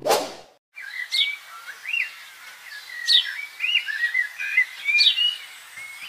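Birdsong ambience: several birds chirping and warbling, with a sharp downward-sweeping whistle about every two seconds, over a steady outdoor hiss. A brief rushing sound comes at the very start, just before the birds begin.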